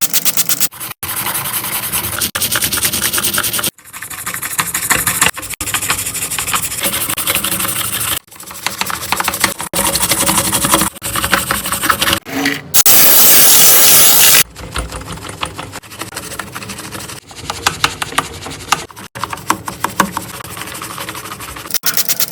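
Rapid rhythmic scraping and scrubbing strokes on a road roller, in a string of short clips that cut in and out abruptly, with a loud steady hiss of spray for a couple of seconds about halfway through.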